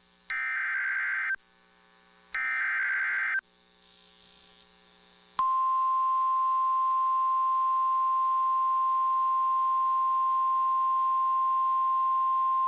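Emergency Alert System tones: two buzzy one-second bursts of the digital header data, then from about five seconds in a single steady high tone, the National Weather Service attention signal that comes before a spoken weather warning.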